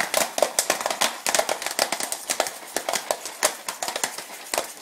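Jiffy Pop popcorn kernels popping inside the expanded foil dome of the stovetop pan: a dense, irregular run of sharp pops.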